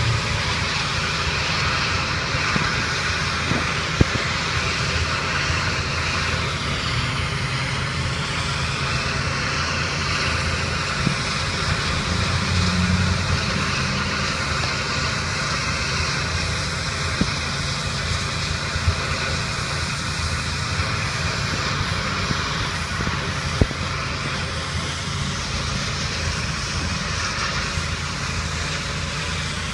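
Pressure washer running steadily: a low engine drone under the continuous hiss of the high-pressure water spray, with a few sharp clicks.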